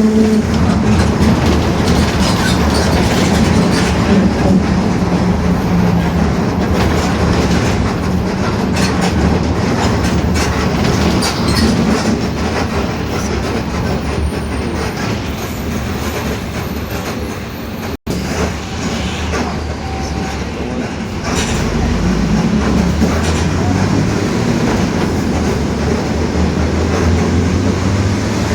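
Mercedes-Benz OF-1721 BlueTec 5 city bus running under way: a steady low drone from the engine and drivetrain, with road noise and many small knocks and rattles from the body. The drone is what the title blames on a growling differential. The sound cuts out for an instant about two-thirds of the way through, and the low drone comes back stronger after it.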